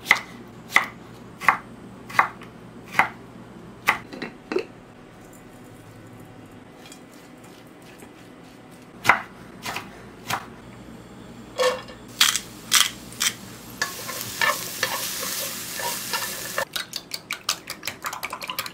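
Chef's knife slicing cucumber on a wooden cutting board, a regular stroke about every three-quarters of a second, then after a pause scattered chopping strokes through carrot. A steady sizzling hiss follows for a couple of seconds, the julienned carrot stir-frying. Near the end comes a fast ticking: a utensil beating eggs in a glass measuring jug.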